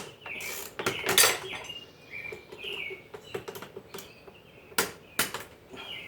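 Sharp metal clanks and knocks from tools being worked on an old post vise, the loudest about a second in and two more near the end, with short high squeaks between them.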